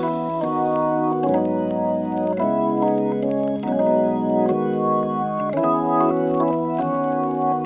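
Background music played on an organ-like keyboard: sustained chords changing about every second.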